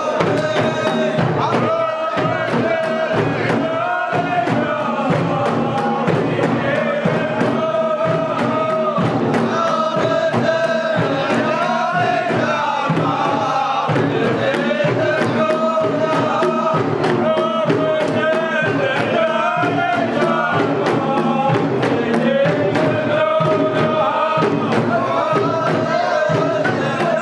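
Men's voices chanting a song in unison over a quick, steady percussive beat.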